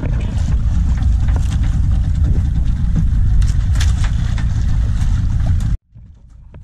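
Steady low rumble of a small fishing boat at sea, with a few short knocks, cutting off abruptly near the end.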